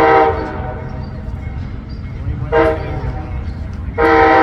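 Amtrak locomotive's air horn sounding over the low rumble of the arriving train. A long blast cuts off just after the start, a short toot comes about two and a half seconds in, and another long blast begins near the end.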